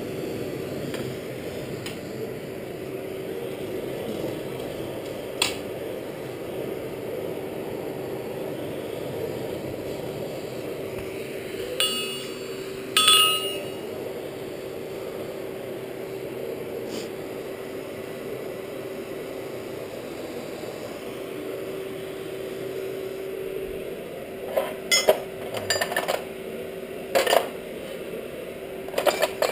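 Steady hum of a forge's air blower, with tongs clinking with a ringing metallic note twice around the middle. Near the end come a quick run of sharp metal clanks and rattles as steel bars are handled.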